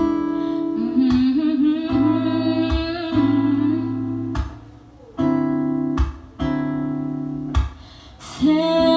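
Acoustic guitar strumming chords as a song's intro, with a voice humming wordlessly along in places.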